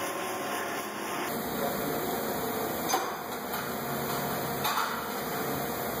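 Steady hissing garage background noise with a few light clicks, as a brake rotor is handled on its hub.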